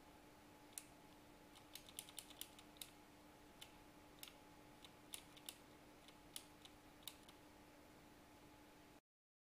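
Computer keyboard keys clicking in scattered, uneven strokes over a faint steady hum; the sound cuts off to dead silence near the end.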